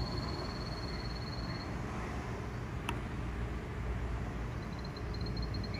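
A high-pitched, rapid frog-like trill that stops about a second and a half in and starts again near the end, over a steady low rumble and hiss of background noise.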